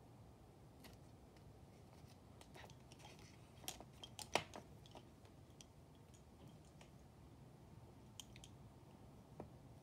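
Wooden lace bobbins clicking against one another as they are picked up and crossed, mostly faint, with a quick run of sharper clacks about four seconds in.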